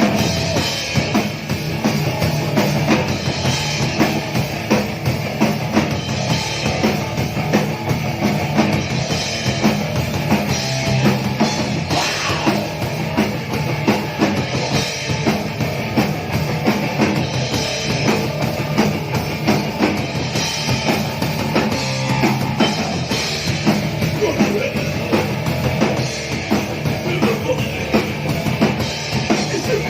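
A live crust punk band playing loud, dense music driven by a drum kit hitting several times a second.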